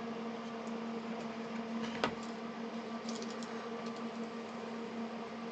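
Steady electrical hum from workbench equipment, with one sharp click about two seconds in and a few faint ticks shortly after.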